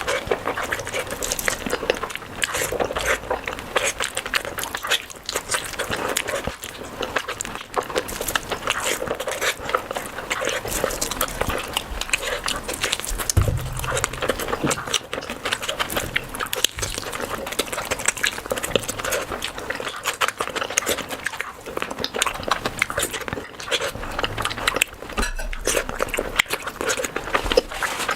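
Close-miked eating of curry and rice: a dense, continuous run of chewing and mouth clicks.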